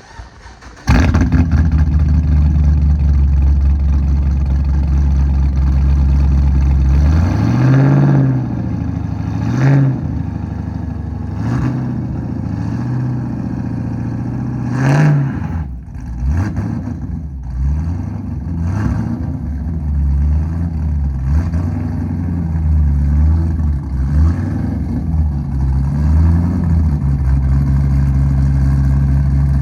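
Vauxhall Monaro VXR's V8 starting from cold, catching abruptly about a second in and settling into a steady, loud fast idle. After several seconds it is blipped through a series of sharp revs, the biggest four in the first half, with smaller throttle blips after. It then drops back to a steady idle near the end.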